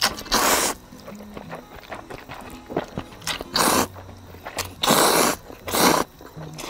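A person eating ramen and kimchi, slurping loudly in four airy sucks: one about half a second in, then three close together in the second half. Soft background music plays underneath.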